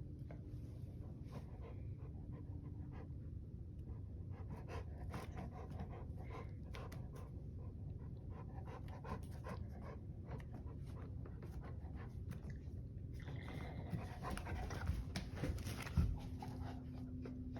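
Dog panting steadily, growing louder for the last few seconds, with a sharp knock shortly before the end.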